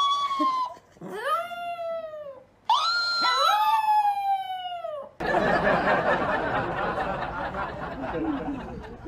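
A Chihuahua howling: about three drawn-out howls, each rising and then sliding down in pitch, the last with two voices overlapping. About five seconds in, this cuts suddenly to a steady noisy hiss.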